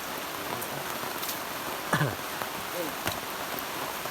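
Steady rain hiss. About two seconds in, a short, loud call glides sharply downward in pitch, followed by a briefer curved call and a single click.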